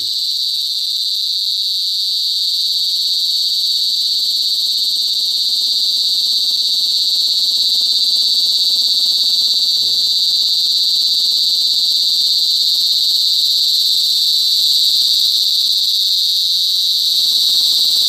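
Cicada singing: one continuous high-pitched buzz, loud and steady, growing slightly louder after about eight seconds.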